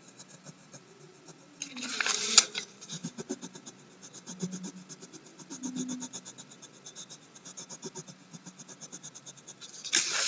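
Crayon scratching on a paper worksheet in fast back-and-forth colouring strokes, many a second. There is a louder rustle with a sharp click about two seconds in, and the paper rustles loudly near the end as the sheets are shifted.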